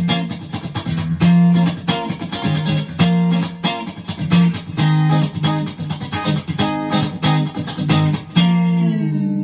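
Tagima T-640 electric guitar played through an amp: a quick run of picked notes and chords, then a held chord near the end whose pitch sags and comes back.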